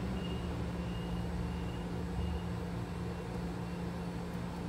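Steady low engine hum with a droning tone, and a high-pitched beep repeating about every 0.7 seconds that stops about halfway through.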